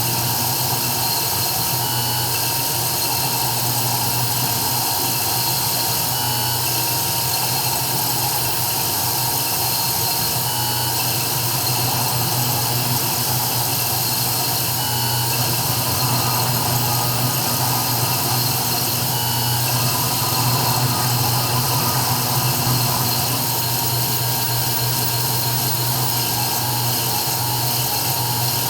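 CNC 3040 router engraving: the spindle runs steadily with a low hum and a high hiss, while short high whines come and go as the axes move.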